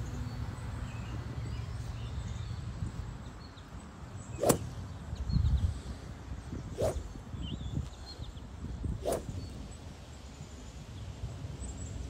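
Three practice swings of a golf driver swishing sharply through the air, about two and a half seconds apart, the first the loudest. Faint bird chirps are heard behind them.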